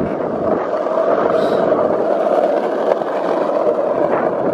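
Wheels rolling fast over rough asphalt: a steady, loud rolling roar as the rider is towed along by a husky on a leash.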